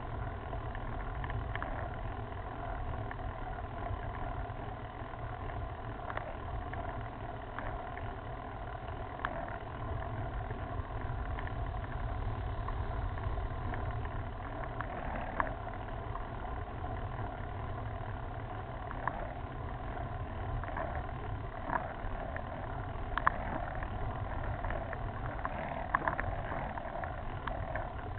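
Steady rumble from a road bike climbing rough asphalt, picked up by a handlebar-mounted camera: tyre noise and road vibration through the mount, with scattered sharp clicks and rattles.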